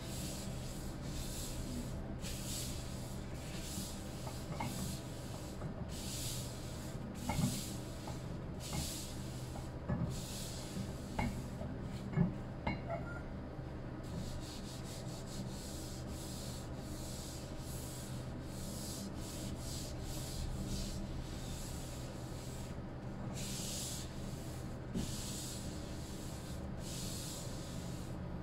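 A paper towel rubbed briskly back and forth over a bamboo cutting board, a steady rhythm of dry swishing strokes, with a short pause about halfway and a few light knocks in the middle.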